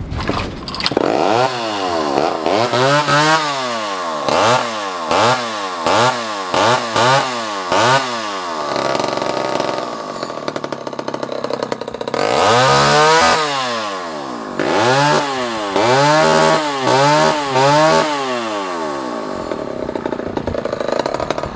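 Vintage Homelite XL-12 two-stroke chainsaw starting up within the first second, then revved in quick throttle blips, each a rising and falling whine, with steadier running between, one longer high rev in the middle and a second run of blips. It then settles to steady lower running. The saw runs strongly and responds crisply to the throttle.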